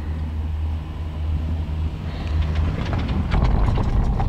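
Doppelmayr detachable quad chairlift's haul rope and chair grip passing over a line tower's sheave train: a steady low rumble, then a rising run of clattering clicks in the last second or two as the grip rolls over the sheaves.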